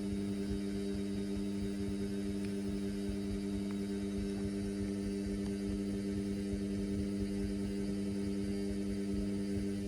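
Indesit washing machine running with a steady low electric hum, one unchanging tone with a couple of higher overtones and no rise or fall in pitch.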